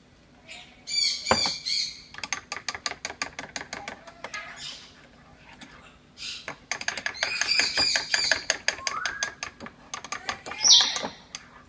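A spoon stirring drinks in ceramic mugs, clinking rapidly against the sides in two long bouts. There are high chirping sounds near the start and a short, loud high squeal near the end.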